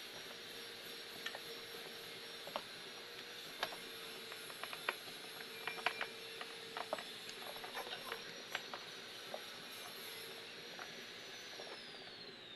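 Scattered light clicks and taps of small parts and tools being handled during bench work, over a steady high whine that falls in pitch near the end as it winds down.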